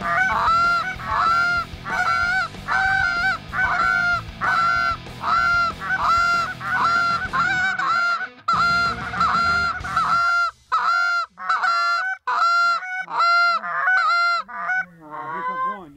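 Canada goose honking: one voice giving a steady run of honks, about two a second, that turn quicker and shorter after about ten seconds, with a few lower, varied calls near the end.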